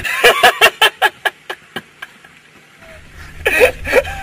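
A man laughing hard: a quick run of 'ha' pulses that slows and fades out, a short pause, then a fresh loud burst of laughter near the end.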